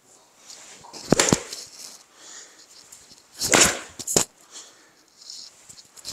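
A 6 iron swung on an indoor hitting mat: a quick whoosh and a loud crack as the club strikes the ball about three and a half seconds in, then a second sharp crack about half a second later. There are a couple of lighter knocks about a second in.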